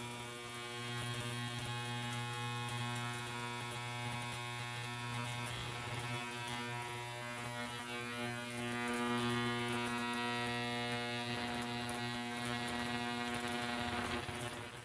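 An electric motor running steadily, giving a low, even hum with a buzz above it.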